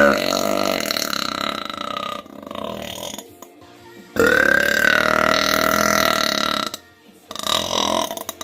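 A woman belching long, drawn-out burps. The first runs on to about two seconds in, a fainter one follows, a second long one lasts from about four seconds to nearly seven, and a shorter one comes near the end.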